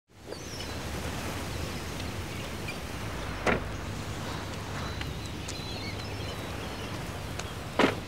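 Steady outdoor ambience with a low rumble, broken by two sharp thuds: one about three and a half seconds in and one near the end.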